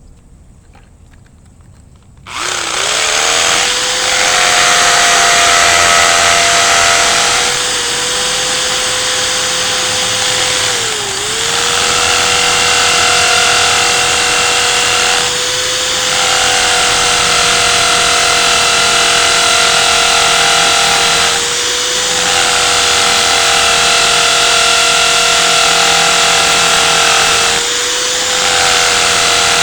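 Electric drill fitted with a smaller water-cooled masonry bit, starting up about two seconds in and then running steadily as a loud whine while it bores a screw hole into the tabletop. Its speed and level sag briefly every few seconds under load.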